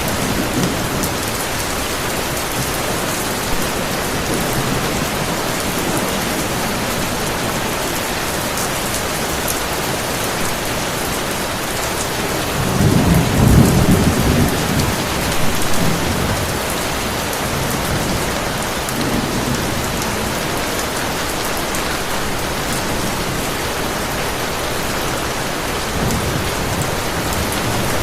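Heavy rain falling steadily, with a low rumble of thunder rolling in about halfway through and dying away over a few seconds.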